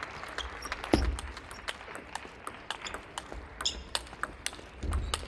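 Table tennis rally: a celluloid-type plastic ball being struck by rackets and bouncing on the table, a string of sharp clicks at uneven spacing. A heavier thump comes about a second in, and another near the end.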